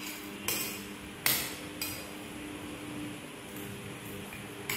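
Metal forks clinking against plates while noodles are eaten: two sharp clinks under a second apart, the second the loudest, then a lighter one, over a faint steady hum.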